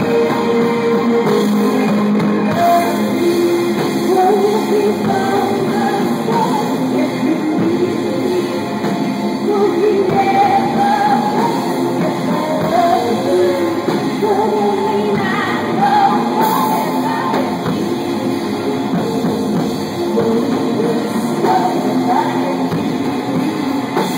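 Live band music: female vocals sung over synthesizer keyboards and drums, with a steady loud mix.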